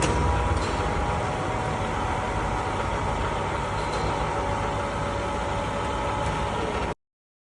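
Vernier bed-type milling machine running: a steady mechanical hum with a thin motor whine, which cuts off abruptly about seven seconds in.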